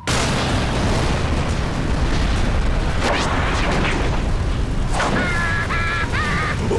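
Cartoon sound effect: a loud, steady rush of noise with a heavy low end that starts suddenly and keeps going. Short high-pitched squeaky cartoon voices come in about five seconds in.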